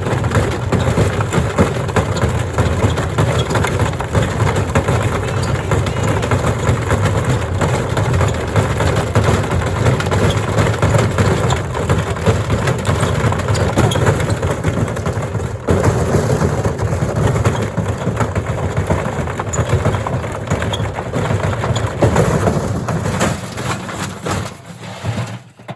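Gorenje SensoCare washing machine running with heavy bricks in its drum: a continuous loud clatter of bricks crashing against the drum over a low rumble. It fades out near the end.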